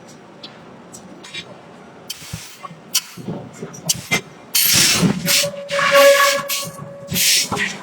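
Heavy-forging shop work: scattered metal knocks and clanks, then from about halfway several loud hissing rushes, one carrying a steady whistling tone.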